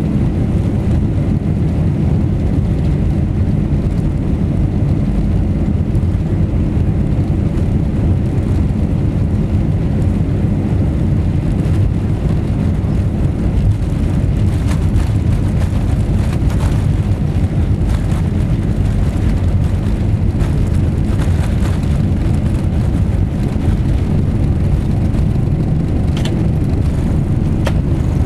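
Steady low rumble of a Boeing 747-400 heard inside the cabin over the wing as the jet rolls along the runway, its engines running and undercarriage on the ground. Faint rattles come in over the second half.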